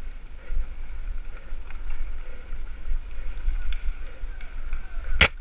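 Mountain bike ridden fast over a dirt trail, heard from a handlebar camera: steady wind rumble on the microphone with tyre and frame rattle, and one sharp knock near the end.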